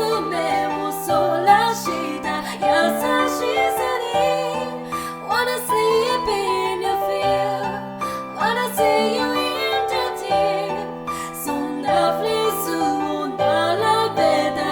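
A woman singing a slow, melancholy ballad with vibrato over a piano accompaniment of held chords and bass notes.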